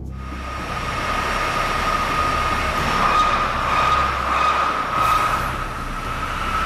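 MAN AR-MAX1 axial/radial main air compressor running on its test bed: a loud, steady rushing noise with a steady high whine over it.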